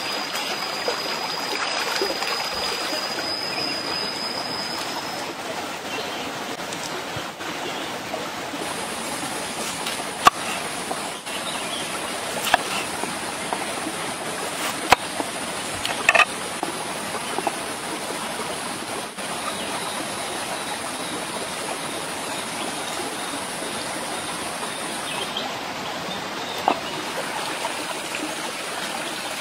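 A stream running steadily over rocks, with a few separate sharp knocks from a cleaver cutting bitter melon on a wooden chopping board, most of them in the middle of the stretch.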